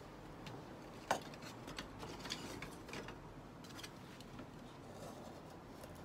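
A knife splitting and shaving a thin stick of kindling. There is a sharp crack of the wood about a second in, then a run of short scraping strokes and small snaps.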